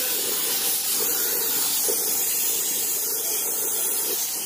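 Air spray gun hissing steadily as it sprays black two-component polyurethane paint onto a motorcycle panel.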